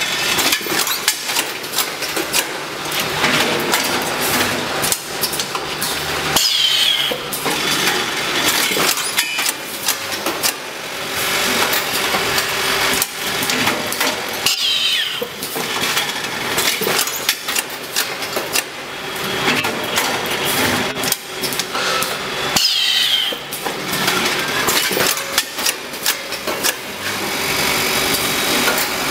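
Automatic rice vacuum packing machine running, with continuous mechanical clatter and clicking. About every eight seconds a short sound with a falling pitch recurs.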